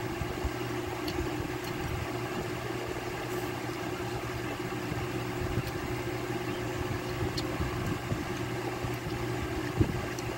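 Electric stand fan running with a steady motor hum, plus a few faint ticks and one brief knock near the end.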